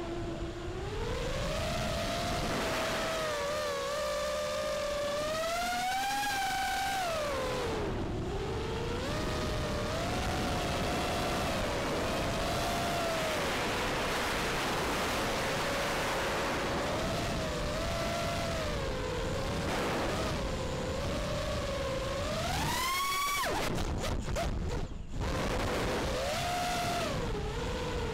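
FPV quadcopter's electric motors and propellers whining, the pitch rising and falling with the throttle, over a steady rush of wind, as heard from the drone's own camera. About 23 seconds in the whine climbs sharply, then cuts in and out for a couple of seconds before it steadies again.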